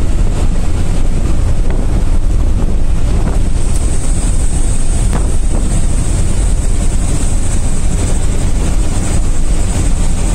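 Steady, loud rumble of a truck at highway speed heard from inside its cab: engine, tyre and wind noise blended together.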